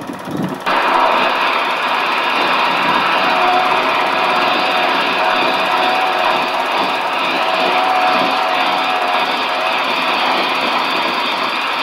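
A motor-driven high-pressure spray jetting against a steel barge hull: a steady mechanical hiss with a faint hum, starting abruptly within the first second.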